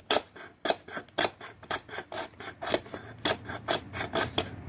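Stainless steel blade of an Opinel No. 8 pocket knife scraping the corner of a piece of pine wood, about ten short strokes at roughly two a second, taking off curls.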